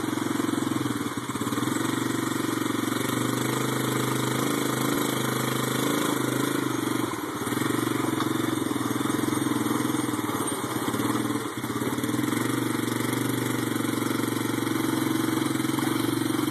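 Honda Big Red three-wheeler's single-cylinder four-stroke engine running steadily under load as it pulls a heavy boat trailer, its note dipping briefly a few times.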